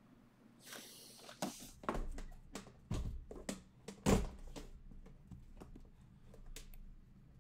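Aluminium card cases being handled and moved: a brief rustle about a second in, then a run of knocks and clunks, the loudest about four seconds in.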